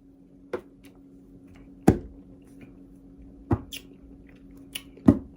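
A person gulping soda from a bottle: four short wet swallows about a second and a half apart, with a few fainter clicks between them.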